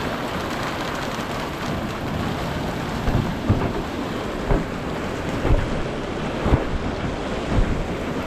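Heavy rain pouring down in a violent thunderstorm, a steady loud rush. From the middle of the stretch it is broken by about six sharp low thumps, roughly one a second.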